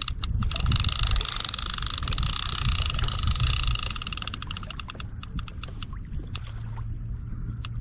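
A fishing reel's drag clicking rapidly as a big hooked fish pulls line off against it. The clicks thin out and slow from about five seconds in and stop near the end. A low rumble of wind and water runs underneath.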